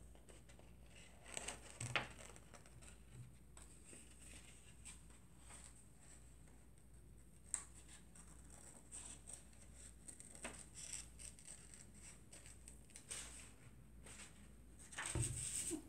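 Scissors cutting construction paper in faint, scattered snips, with the paper rustling as it is turned. A louder rustle of paper handling comes near the end.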